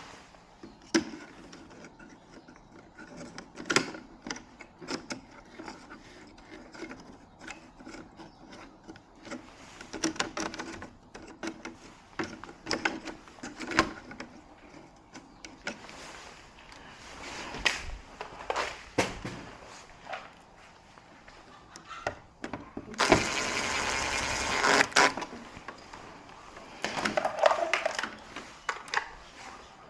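Scattered clicks, knocks and rubbing of handling noise, with a louder hissing rush lasting about two seconds past the two-thirds mark.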